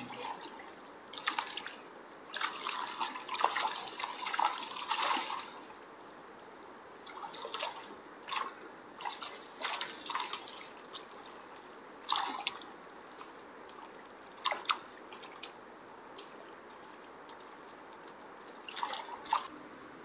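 River water sloshing and splashing in irregular bursts as a person wades through it, the longest stretch of splashing a couple of seconds in, then shorter splashes spread through the rest.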